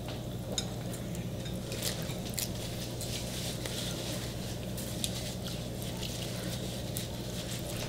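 Quiet mukbang eating sounds: scattered small clicks and wet noodle sounds from chopsticks working the noodles and the hotpot, over a steady low hum.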